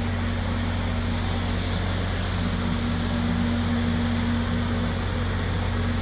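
Steady machine hum: a constant hiss over a low drone and a held tone, unchanging throughout.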